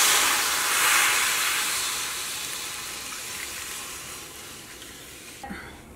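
Chicken stock poured from a bowl into a hot stainless steel pan, hissing and sizzling as it hits the metal and fading steadily over several seconds. The sound cuts off suddenly near the end.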